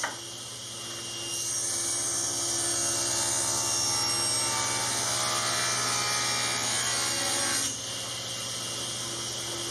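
Table saw running while a board is ripped lengthwise: the blade bites into the wood about a second in and cuts steadily, then spins free near the end as the cut finishes, the motor humming throughout.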